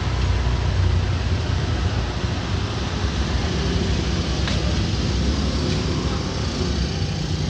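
Steady roadside traffic noise: a continuous low rumble of passing vehicles under a constant hiss.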